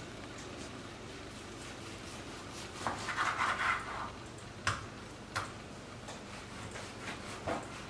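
Kitchen knife slicing raw meat on a wooden cutting board: a short rasp of the blade drawing through the meat about three seconds in, then a few sharp knocks of the blade against the board.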